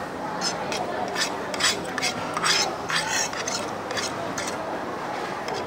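Short, irregular rustles and scrapes of hands handling food close to the microphone, over a steady background murmur.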